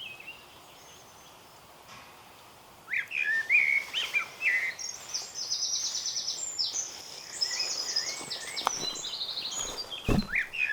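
Songbirds singing: quiet for the first few seconds, then whistled rising-and-falling phrases from about three seconds in, followed by fast, high repeated trills.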